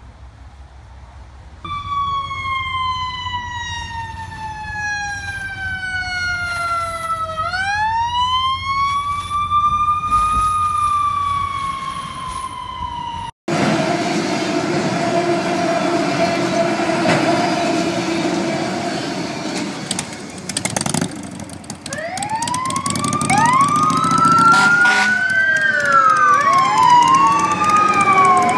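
A mechanical siren winds down in pitch, spins back up about seven seconds in, then slowly coasts down again. After an abrupt cut, a freight train runs past a level crossing. Then several electronic wail sirens rise and fall over one another.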